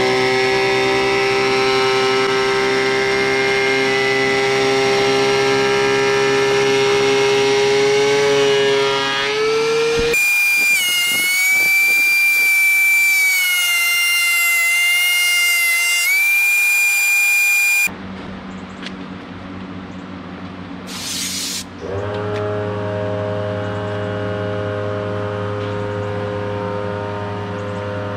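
DeWalt benchtop thickness planer running with a loud, steady high whine, its pitch rising about nine seconds in. A shriller tone that shifts pitch in steps follows abruptly for several seconds, then the machine runs more quietly, with a short hiss partway through.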